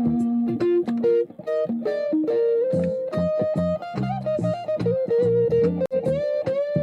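Guitar playing an instrumental intro: a melodic line of plucked, sustained single notes with low notes underneath.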